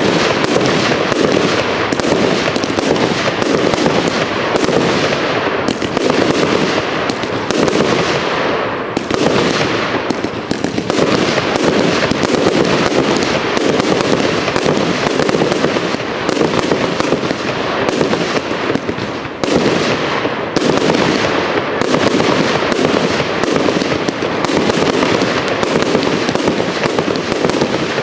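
Royal Fireworks 'Thunder Flower' 70-shot salute cake firing: a rapid, unbroken string of shots launching and bursting with loud bangs.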